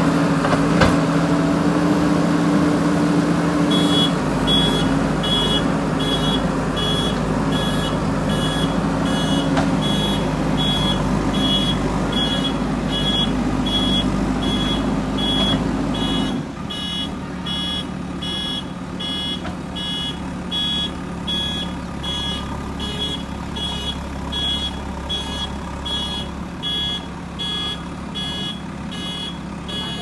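JCB 3DX backhoe loader's diesel engine running, joined about four seconds in by its reversing alarm beeping about twice a second. About halfway through, the engine sound abruptly becomes quieter and lower.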